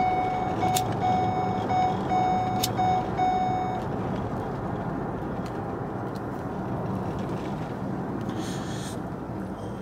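A car's warning chime beeps repeatedly over the steady low hum of the vehicle and stops about four seconds in. Two sharp lighter clicks come while it sounds, and a breathy exhale of smoke follows near the end.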